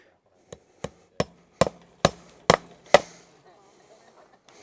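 Hammer driving fence staples into a wooden fence post to fasten the wire: seven sharp strikes, about two or three a second, in the first three seconds, then a pause.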